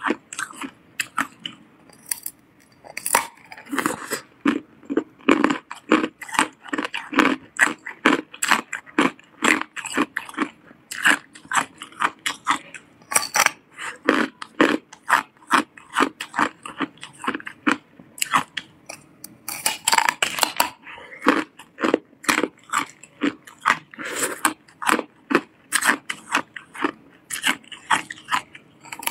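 A person biting and crunching hard clear ice, teeth cracking off and chewing chunks from a large block. The sharp crunches come a few each second without a break.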